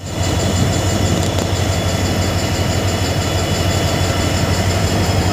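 Train locomotive running, heard from inside the driver's cab: a steady engine noise with a strong low hum.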